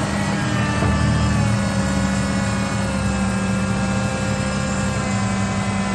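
Tractor engine running steadily under load with a whine over it, while the trailer's hydraulic rams raise the body to tip a load of barley; heard from inside the tractor cab.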